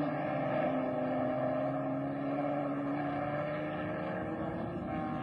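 1960s open-wheel racing car engine running at high revs. Its note dips slightly near the start and then holds steady.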